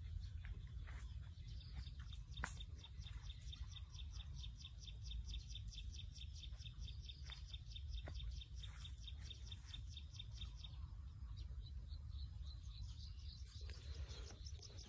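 A bird chirping in a rapid, even series, about six high chirps a second, that stops partway through and starts again near the end, over a low steady rumble. A single sharp click sounds about two and a half seconds in.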